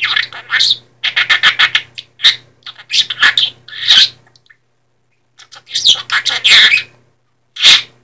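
Budgerigar chattering in quick bursts of high, squeaky mimicked speech mixed with chirps and clicks, with a pause of about a second midway.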